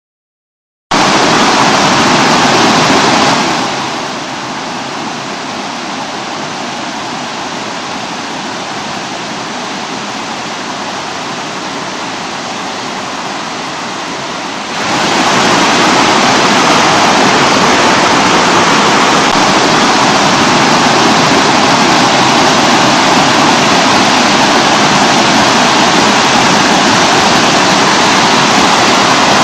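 Waterfall on a mountain stream: water cascading over rocks, a steady, even rush of falling water. It starts just under a second in, turns quieter a few seconds later, and grows louder again about halfway through.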